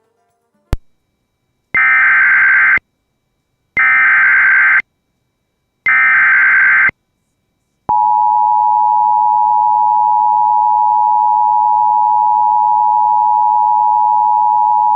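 Emergency Alert System broadcast signal announcing a severe thunderstorm warning. A sharp click is followed by three one-second bursts of SAME digital header data, about a second apart. About eight seconds in, the steady two-tone EAS attention signal starts and holds.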